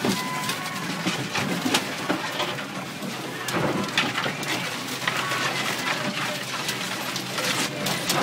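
Water sprays and spatters against the windshield and body of a Geo Tracker as it drives through puddles, heard from inside the cab: a steady wash of spray broken by many sharp splashes.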